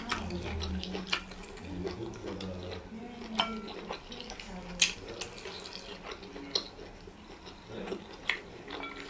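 Fingers working soup and meat in a ceramic bowl: wet squishing, with sharp clicks of the fingers knocking against the bowl every second or two.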